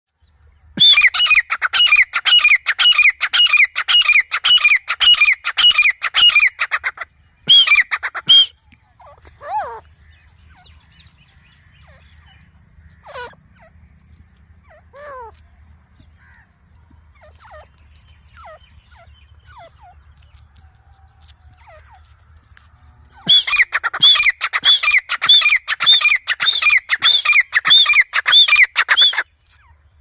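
Grey francolin (teetar) calling: a long, loud run of ringing notes repeated about twice a second, then a short pair. Softer falling notes follow in the lull, and a second long loud run starts near the end.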